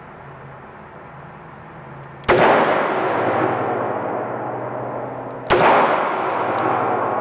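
Two shots from a Smith & Wesson 642 .38 Special revolver, about three seconds apart. Each shot is followed by a long echo that dies away slowly.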